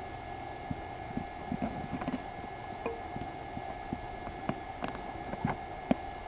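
Wood campfire crackling, with irregular sharp pops a few times a second over a steady faint hum.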